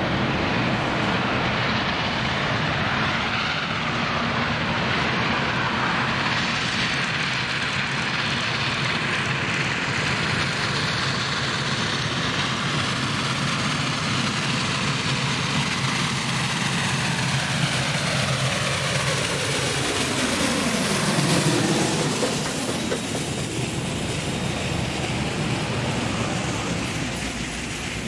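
Steady rumble of a passing vehicle, its sound sweeping down in pitch and loudest about twenty-one seconds in as it goes by.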